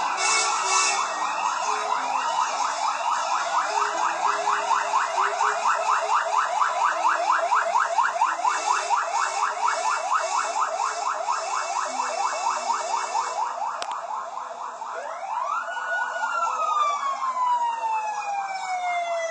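Several emergency-vehicle sirens sounding together: slow wails at first, a fast yelp through the middle, and near the end one siren climbing quickly and then winding slowly down in pitch.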